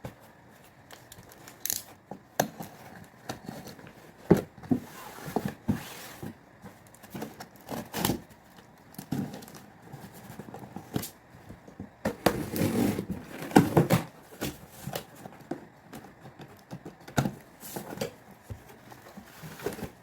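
Hands handling and unwrapping packaging: crinkling, tearing and rustling, with irregular taps and clicks, busiest about two thirds of the way through.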